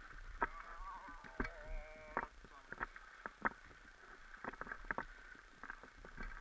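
Sea-Doo XP jetski moving slowly, with irregular knocks and slaps of water against its hull over a faint steady hum. A brief wavering pitched sound comes between about half a second and two seconds in.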